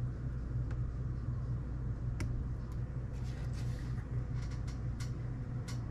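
Steady low background hum, with a few faint, light clicks and taps from a thin applicator stick and a small plastic cup being handled, starting about two seconds in.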